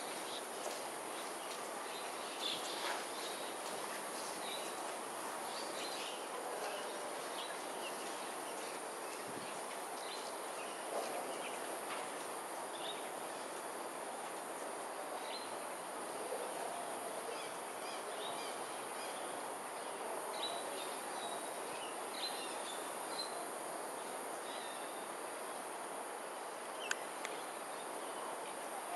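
Outdoor evening ambience: a steady high-pitched insect drone with short bird chirps scattered throughout, over a steady background noise. A single sharp click comes near the end.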